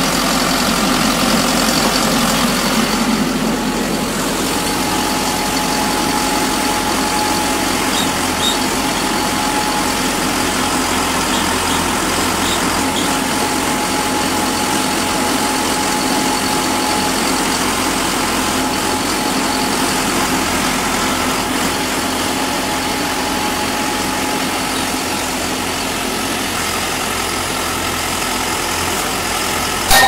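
Tracked pile driver's engine idling steadily between drives, an even hum with no hammer blows, while the post is being set plumb.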